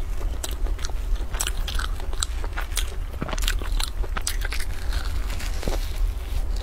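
Close-miked biting and chewing of a sugar-coated twisted fried dough pastry: a run of short, crunchy crackles as the crisp, sugary crust breaks.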